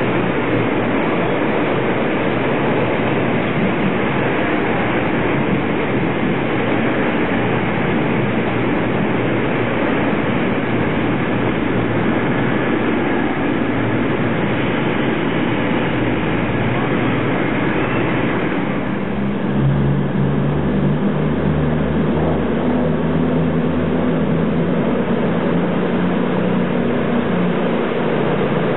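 CrossCountry Voyager diesel multiple unit (Class 220/221) running along the platform, its underfloor diesel engines and wheels on the rails giving a loud, steady noise. About two-thirds of the way through, the sound changes abruptly to a steadier, lower engine drone as another Voyager approaches.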